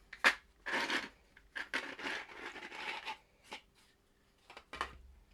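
3D-printed plastic insert parts being handled: a sharp click, then stretches of plastic scraping and rubbing, with a few more small clicks near the end.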